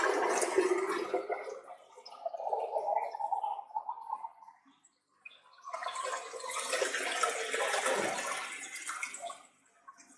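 Water poured from a plastic jug into a clear plastic tub already holding water, splashing steadily. The pour thins and almost stops about four and a half seconds in, resumes strongly about a second later, and tails off near the end.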